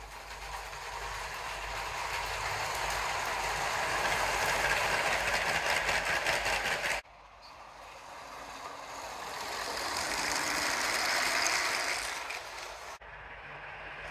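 A Lego model train, a brick-built SBB Re 460 locomotive hauling EuroCity coaches, clattering over plastic brick track. The rapid rattle of its wheels over the rail joints grows louder as it approaches and fades as it passes. The sound breaks off suddenly about seven seconds in and again near the end, then starts again each time.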